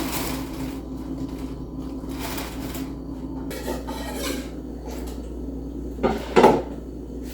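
Kitchen utensils and dishware scraping and clinking, with two louder knocks about six seconds in.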